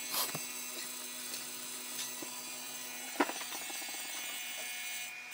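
Steady hum of a vacuum pump drawing down the bag over a carbon fibre layup, with a short crackle of plastic bagging film near the start and a sharp click about three seconds in followed by a quick run of ticks.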